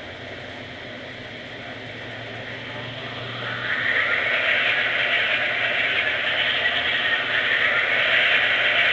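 Sound decoder in an HO-scale Baldwin Centipede diesel model playing its engine start-up through the locomotive's small speaker: a steady diesel rumble that grows louder about three and a half seconds in as the second of its two engines fires up.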